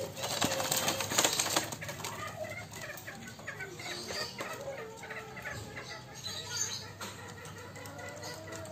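A black hen held by her legs flaps her wings hard for about a second and a half. Soft, wavering chicken calls follow.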